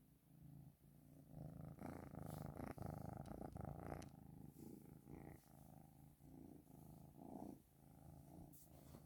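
Cat purring steadily and faintly, with a few soft clicks or rustles.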